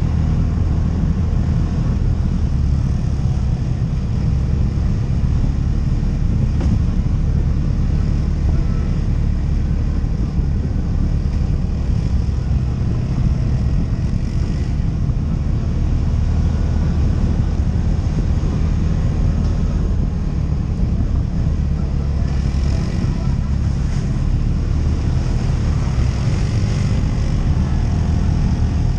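ATV engine running steadily under way on a trail, a low drone that stays even. A higher hiss comes up over it in the last several seconds.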